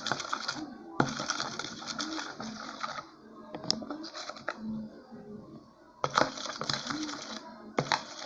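A spoon stirring slime in a container: quick clicking and scraping of the spoon against the container in stretches of a second or two, with a quieter gap in the middle.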